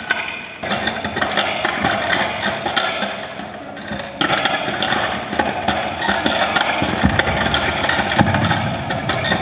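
Prepared acoustic guitar lying flat, its strings hung with chains and clips, being worked by hand at the headstock: a dense metallic scraping and clatter of chains on strings. It gets louder about half a second in and again at about four seconds, and a deeper rumble joins near the end.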